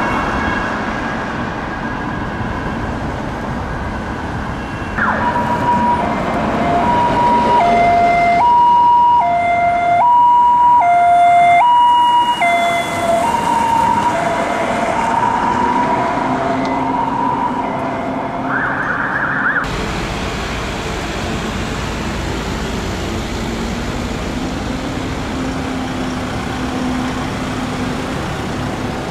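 Two-tone emergency siren alternating between a high and a low note, loudest as the vehicle passes, then dropping in pitch and fading as it drives away, over traffic noise. After a cut, steady vehicle engines and traffic.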